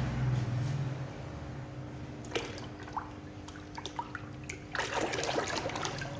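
Water trickling and splashing as plastic toy animals are washed, with scattered light clicks and a longer splash about five seconds in.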